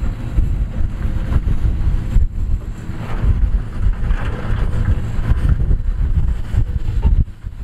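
Dump truck's diesel engine running while its tipper bed is raised to unload rock and soil, with wind buffeting the microphone.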